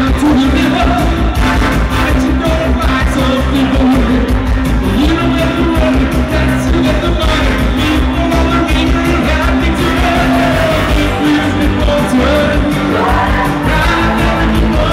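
Loud live pop song through a PA system: a male singer over a steady beat.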